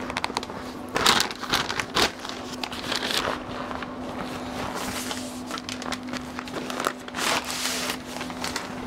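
Butcher paper crinkling and rustling as a brisket is folded and wrapped tightly in it, with louder rustles about one, two and seven seconds in. A steady low hum runs underneath.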